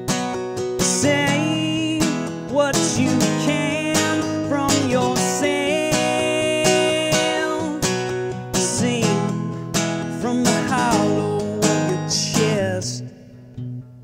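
Steel-string acoustic guitar strummed in an instrumental break of a folk song, a higher wavering melody line rising over the chords in several phrases. Near the end the strumming stops and only quieter picked notes remain.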